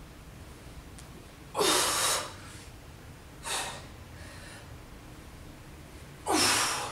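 A woman breathing hard with exertion: two loud breaths, about a second and a half in and near the end, with a softer one in between.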